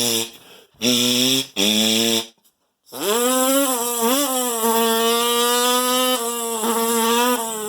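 A man's vocal imitation of a dirt bike engine. A few short buzzy revs come first, then after a brief pause one long held rev at a near-steady pitch with slight wavers.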